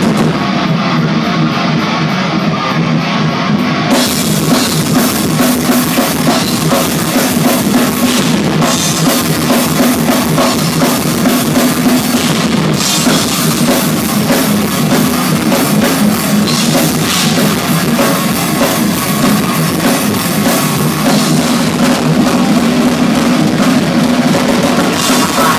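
Thrash metal band playing live: distorted electric guitars and a drum kit, loud and dense without a break.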